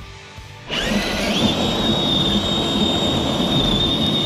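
RC crawler's electric motor and gears whining at high revs: the whine starts about a second in, climbs quickly and then holds one steady pitch, over a rushing noise.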